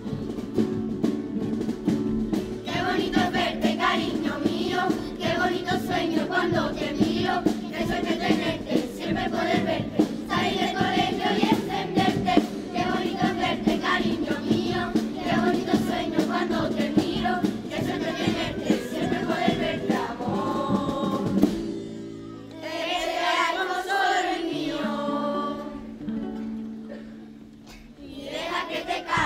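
Children's carnival choir singing together, backed by strummed acoustic guitars and a drum. The song eases into a softer, thinner passage about three-quarters through, dips briefly near the end, then comes back up.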